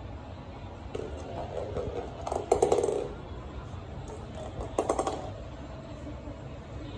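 A cat's small toy ball rolling and rattling across a wooden floor: two short bursts of rapid clicking, the first and louder about two and a half seconds in, the second about five seconds in.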